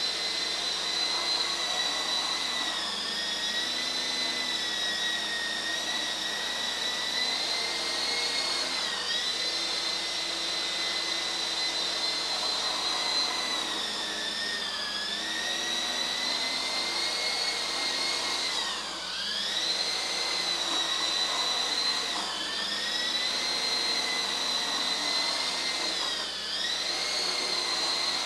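Small electric coaxial RC helicopter hovering and scooting from side to side, its motors and rotors giving a steady high whine. The pitch and level dip briefly four times as the throttle is eased.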